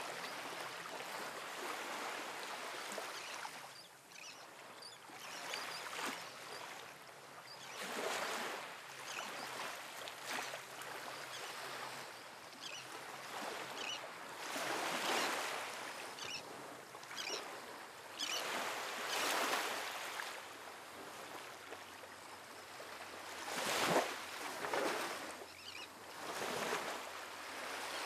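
Outdoor wind and surf ambience: an even rushing noise that swells and fades every few seconds, with a brief sharper burst near the end.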